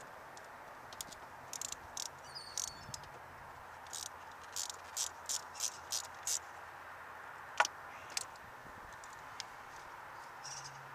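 Rubber hose being trimmed shorter and handled in an engine bay: a scatter of short, sharp clicks and snips, including a quick run of about six and one louder click about two-thirds through, over a steady hiss.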